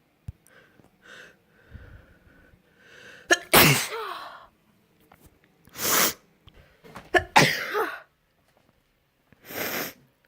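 A person sneezing four times in a row, each sneeze a loud, short burst, after a few faint catching breaths in the first seconds.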